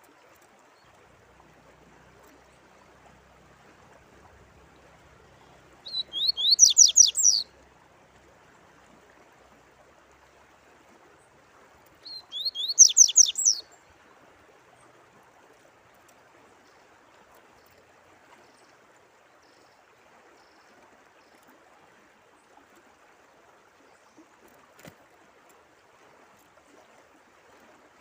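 A songbird sings two short phrases, each a quick run of about eight rising whistled notes lasting a second and a half, a few seconds apart, over the steady sound of running water.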